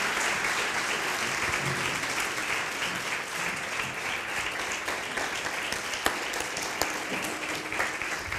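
Audience applauding, a steady dense clapping that slowly fades, with one sharper knock about six seconds in.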